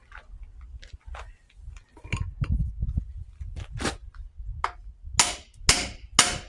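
Metal hammer blows driving a bolt into the mounting holes of an excavator quick hitch: a few scattered lighter strikes, then three loud, ringing blows about half a second apart near the end.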